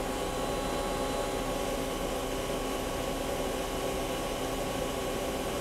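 Live-tooling spindle of a Star SV-32J CNC Swiss-type lathe running at a steady speed under power. It gives an even mechanical whine made of several constant tones over the machine's running hum.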